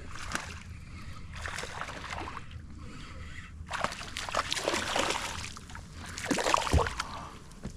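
Water splashing and sloshing in shallow water, louder and busier from about halfway through, with a few sharp splashes near the end.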